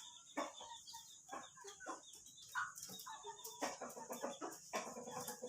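Faint clucking of chickens: a string of short, irregular calls.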